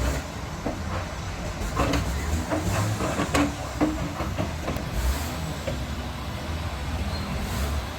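Excavator's diesel engine running steadily under load, with a cluster of metallic clanks and knocks between about two and four seconds in.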